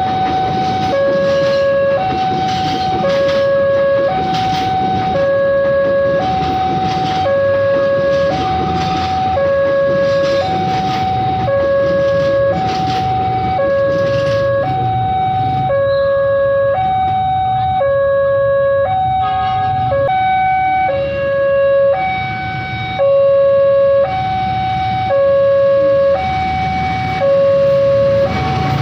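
Railway level-crossing warning siren sounding a loud two-tone hi-lo alarm, about one high-low cycle a second, repeating without a break.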